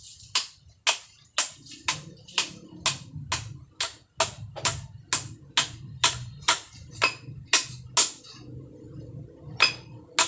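Background music with a steady beat, a sharp percussive hit about twice a second over low sustained notes.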